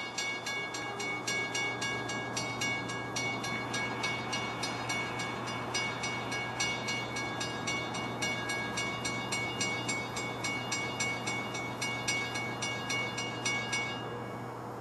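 Railroad grade-crossing bell ringing in rapid, even strokes, about four to five a second, as the crossing signals warn of an approaching train. It stops abruptly about 14 seconds in.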